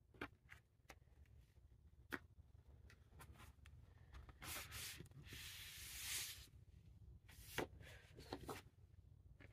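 Glossy paper and card inserts of a vinyl record being handled: a few light taps and clicks, and a longer sliding, rustling rub about four to six seconds in as a printed sheet is pulled out and laid down. Faint overall.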